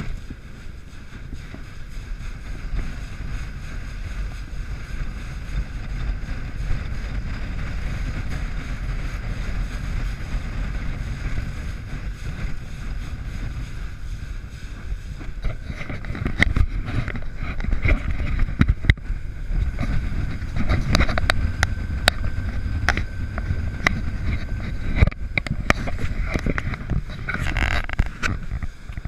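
Ranger Comanche bass boat running fast over choppy water: wind rushes over the microphone and the hull slaps the waves. From about halfway through the slaps and knocks come thicker and louder.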